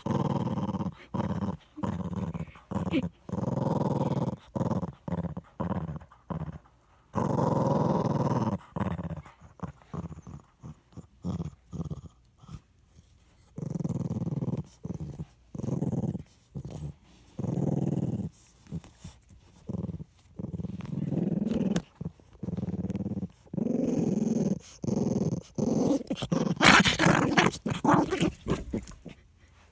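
Small dog growling in repeated bouts of a second or two with short breaks, holding on to a sock that a hand is trying to pull from its mouth. A louder, harsher burst comes near the end.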